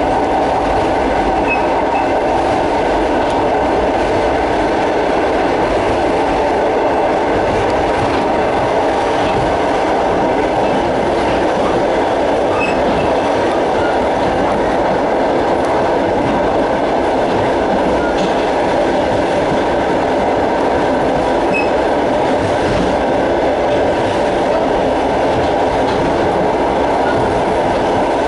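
Russian passenger train running along the line, heard from on board: a loud, steady rumble of wheels on rails.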